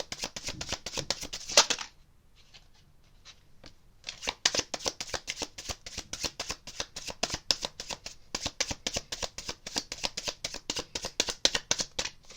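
A deck of tarot cards being shuffled by hand: a fast patter of card clicks, about eight to ten a second. It breaks off for about two seconds near the start, then resumes.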